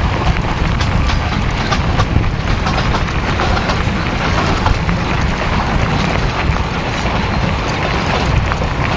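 Steady wind rushing over the microphone with a low rumble from a moving vehicle, dotted with small ticks as its tyres roll over a gravel road.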